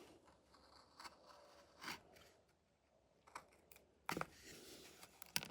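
Faint, scattered clicks and rustles of an old shotgun being handled, with a few sharper clicks near the end.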